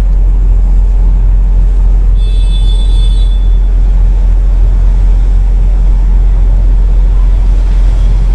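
Steady low rumble of background noise, with a brief high-pitched chirp about two seconds in.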